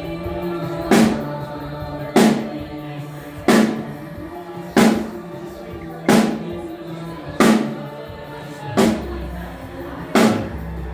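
A single drum struck on its own about every second and a third, each hit ringing briefly at the same pitch, as a drum is checked one at a time during a band's sound check. A low boom comes in under the last few hits, over a steady background hum.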